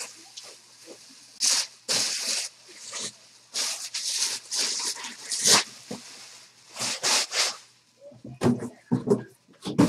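Bubble wrap being handled and crumpled, a series of short, irregular hissing rustles, with a few duller knocks near the end.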